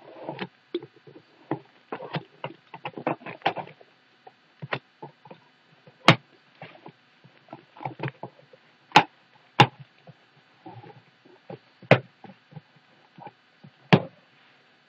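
A cardboard shipping box being opened with a box cutter and handled: a dense run of short scrapes and rustles, then several sharp, loud knocks and clicks spaced a second or more apart.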